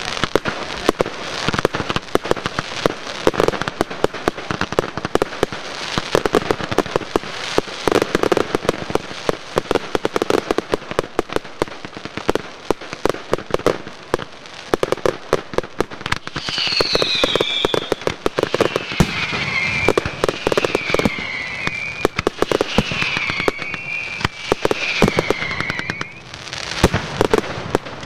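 Fireworks display: a dense, continuous run of cracks and bangs from bursting shells. From a little past halfway, a series of high whistles, each falling in pitch, sound over the bangs.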